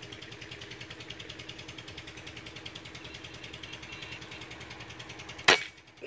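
A PCP air rifle fires once about five and a half seconds in, a single sharp crack that is the loudest thing heard. Under it runs a steady, fast-pulsing mechanical hum.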